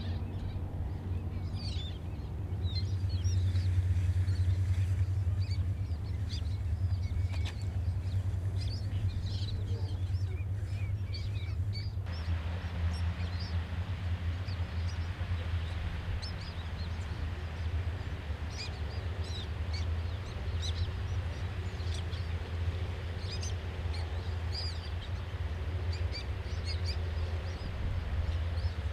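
Many birds giving short, high chirping calls over a steady low rumble. About twelve seconds in, the background changes suddenly to a steady hiss, while the calls go on.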